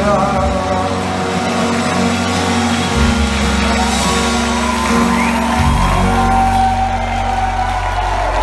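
Live rock band with electric guitars, keyboard, bass and drums playing held chords over a bass line that changes note about three seconds in and again near six seconds, with the crowd shouting and whooping.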